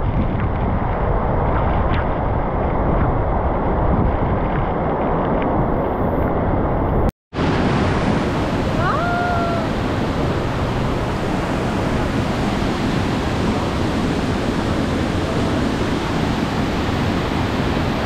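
Waterfall rushing in a loud, steady wash of falling water. The sound drops out for an instant about seven seconds in.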